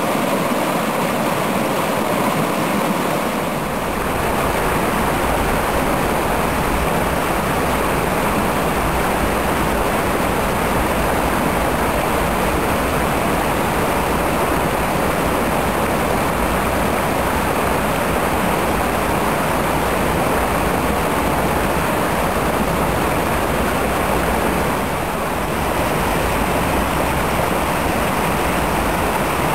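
Stream water rushing and splashing in a steady loud flow.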